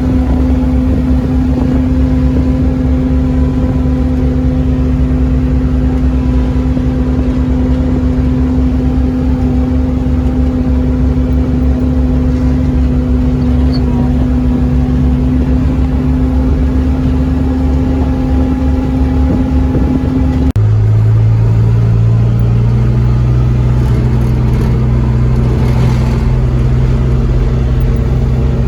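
Vehicle engine running at a steady speed while driving, heard from on board, with a low rumble underneath. About two-thirds of the way through the engine note drops abruptly to a lower pitch and then holds steady.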